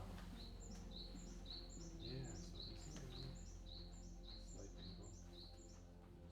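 A songbird repeating a short, high two-part chirp about twice a second, a dozen times in a row, over a low steady hum.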